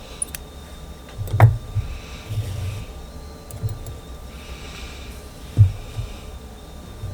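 Hands handling a crocheted piece and its yarn: a few dull thumps, one sharp click, and brief light rustles.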